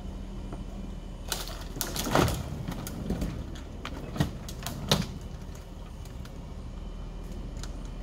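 A low, steady machine hum, with a cluster of sharp cracks and knocks in the middle, the loudest about two seconds in and two more sharp ones near the fifth second.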